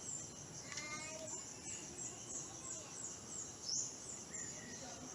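A bird chirping in the background, short high falling notes repeated a few times a second, with a brief higher call about a second in.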